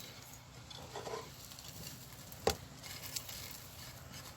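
Quiet handling of herbs and a cooking pot: faint rustling and light taps, with one sharp knock about two and a half seconds in.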